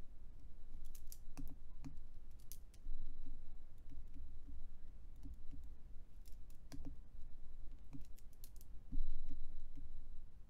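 Scattered light clicks and taps, singly and in small clusters, from computer input while handwriting on screen, over a low steady hum.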